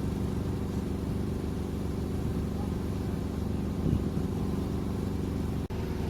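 Truck crane's diesel engine running steadily with a low, even drone. The sound cuts out for an instant near the end.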